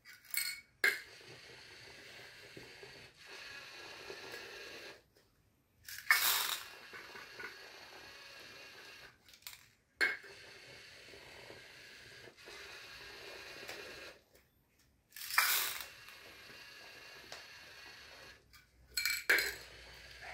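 LEGO Mindstorms EV3 robot's motors whirring as it drives and works its arm, broken every few seconds by loud clattering bursts as small hard pieces spill out of a tipped plastic cup into its plastic hopper.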